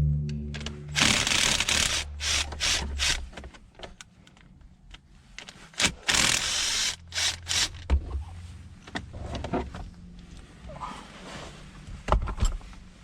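Impact gun backing out the shifter and console bolts, in short bursts: a long burst about a second in, a few short ones, and another long burst around six seconds in. Between them are quieter scraping and knocks of parts being handled.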